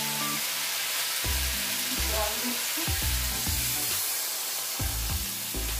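Green beans and potato frying in hot oil in a kadai, with a steady sizzle, stirred with a metal spatula.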